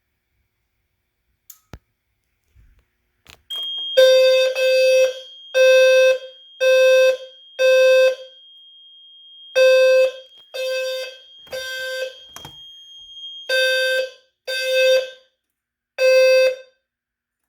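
Fire alarm system in alarm, set off by smoke-testing a detector. A System Sensor P2RH-LF low-frequency horn sounds a low, buzzy tone of about 520 Hz in half-second pulses, mostly in groups of three with pauses between, the temporal-three evacuation pattern. A steady high-pitched electronic tone runs under it for most of the alarm, and the horn stops near the end when the alarm is silenced.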